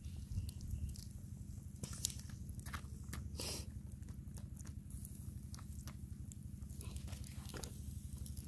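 Wood fire crackling and popping under a wire grill of snails in their shells: scattered sharp clicks and pops, a denser crackle about three and a half seconds in, over a steady low rumble.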